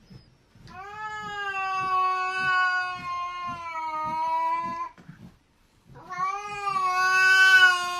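A small silver-grey cat yowling: two long, drawn-out yowls, each held on one steady pitch. The first lasts about four seconds; the second starts about six seconds in.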